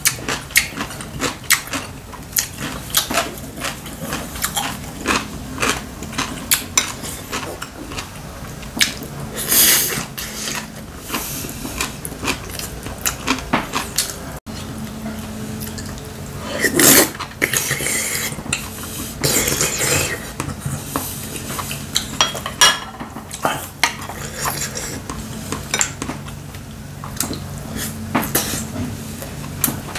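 Chopsticks and a spoon clicking and scraping against ceramic bowls and a stew pot during a meal, in many short taps, with a few louder noisy moments near the middle.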